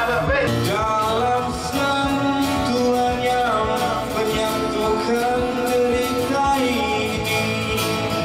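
A man singing into a microphone to his own strummed acoustic guitar, a slow melody with several notes held for about a second.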